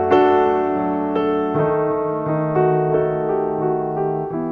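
Background piano music: struck chords and a slow melody, each note decaying after it is played.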